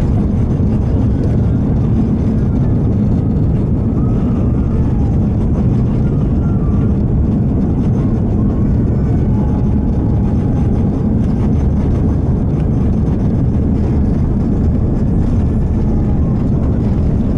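Steady, loud rumble inside the cabin of an Airbus A340-600 rolling along the runway, from its four Rolls-Royce Trent 500 engines and the wheels on the pavement.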